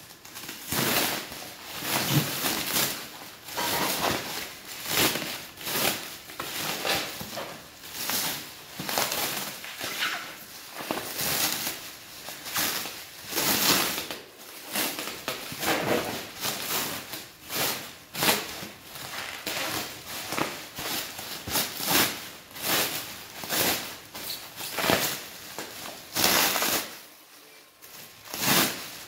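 Clear plastic stretch wrap and air-cushion packing crinkling and rustling in irregular bursts as it is pulled off a parcel by hand, with a brief lull near the end.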